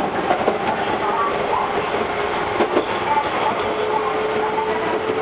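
Shizuoka Railway 1000-series electric railcar running along the track, heard from inside its driving cab: a steady rolling rumble with a steady hum, and a few sharp wheel clacks over rail joints, about half a second in and again around two and a half seconds in.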